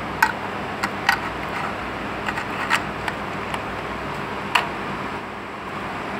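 A few sharp metallic clicks and taps as the brass radiator cap is handled and fitted back onto the radiator's filler neck, the loudest just after the start and another about four and a half seconds in, over a steady noise.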